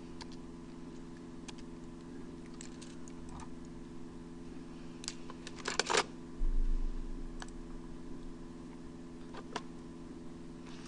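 Scattered sharp clicks and taps from handling computer equipment at a desk, with a quick cluster of clicks just before six seconds in, followed by a short low thump, over a steady electrical hum.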